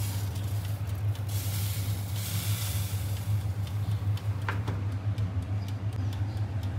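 A countertop electric oven hums steadily while a metal loaf pan scrapes onto its wire rack with a hiss, then the oven door shuts with a click about four and a half seconds in. Faint regular ticking, like a mechanical oven timer, runs underneath.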